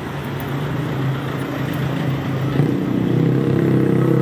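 A motor vehicle's engine running close by, a steady drone that grows louder through the second half.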